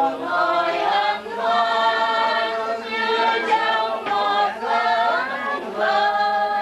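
A group of voices singing a hymn together without instruments, in phrases of long held notes with short breaks between them.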